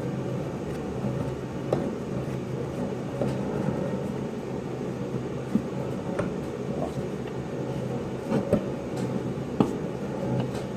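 Electric motor of a workshop drill running steadily with a low hum, with a few light metallic clicks and taps from the threading work.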